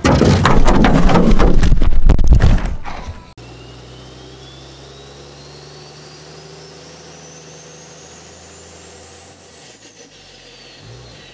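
A loud, rough, crackling burst lasting about three seconds that cuts off suddenly. It is followed by a quiet channel-intro sound effect: a low steady drone under a thin whistling tone that rises slowly, then falls.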